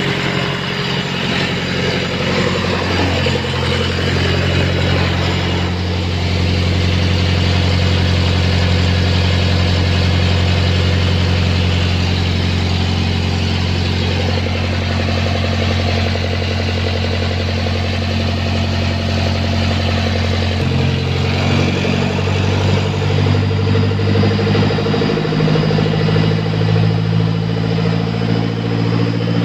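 The diesel engine of a Carrier X4 7300 trailer refrigeration unit running steadily after a compressor nylon gear replacement. Its pitch shifts a few seconds in and again near the end.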